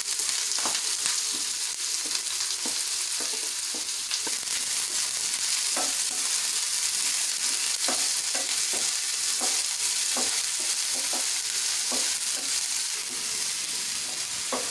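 Chopped onion sizzling steadily in hot oil in a pan, with irregular short scrapes of a spoon or spatula stirring it.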